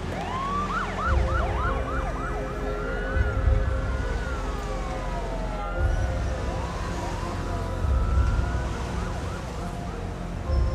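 Emergency-vehicle sirens: a fast yelp just after the start, then slow rising and falling wails that overlap one another, over a low rumble.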